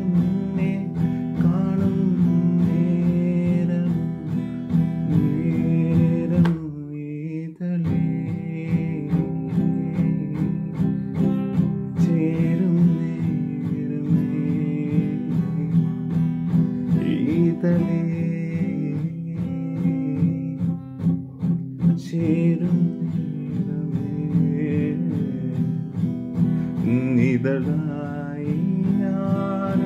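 Acoustic guitar strummed in a steady rhythm of chords, breaking off briefly about six and a half seconds in before the strumming resumes.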